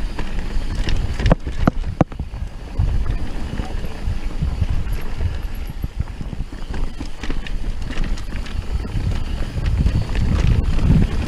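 Wind buffeting the microphone of a mountain bike's point-of-view camera while riding fast down a dirt trail, with the bike rattling and clicking over the rough ground. A few sharp knocks come between one and two seconds in.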